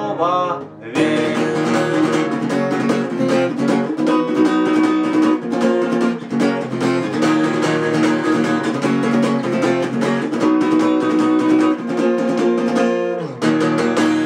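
Acoustic guitar strummed in a steady rhythm of chords, with no singing, breaking off briefly about a second in and again near the end.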